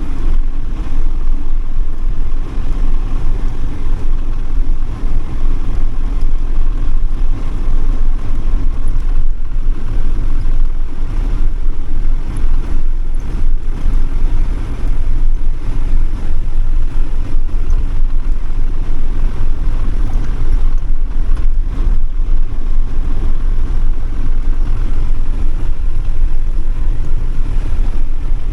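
Campervan driving along a road: a steady rumble of engine and tyre noise.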